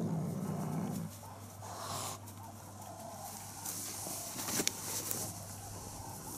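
Young black leopard and caracal play-fighting: a low growl for about the first second, then quieter scuffling and rustling in the grass, with a sharp click a little past four and a half seconds in.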